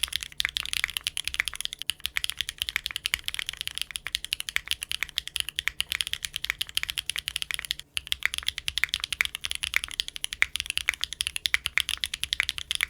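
Typing on a mechanical keyboard fitted with Wingtree Yuying V2 light tactile switches: a fast, continuous run of keystroke clacks with a brief pause about eight seconds in.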